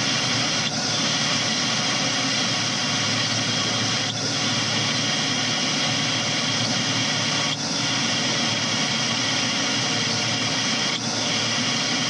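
Steady hiss on the submersible's live audio link, with a faint short chirp about every three and a half seconds.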